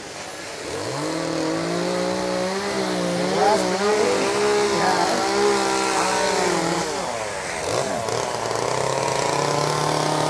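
Gas chainsaws cutting into wood for carving: one revs up about a second in and runs with its pitch wavering, falls away near seven seconds, then a saw runs steadily at a lower pitch from about eight and a half seconds.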